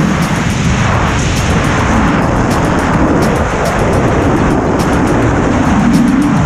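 Freefall wind rushing over a body-mounted camera's microphone in a tandem skydive at about 120 miles an hour: a loud, steady buffeting noise heaviest in the low end.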